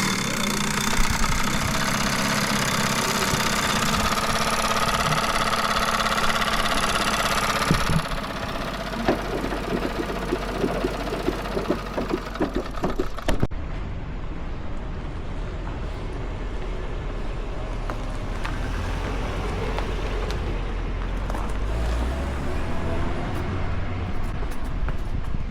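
An old museum vehicle's engine running for about eight seconds, then uneven popping and knocking. About 13 seconds in the sound changes suddenly to a steady low rumble of a car on the move.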